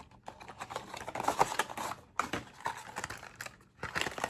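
A PopSockets phone case's packaging being handled and opened: quick, irregular clicks and taps with a little rustling.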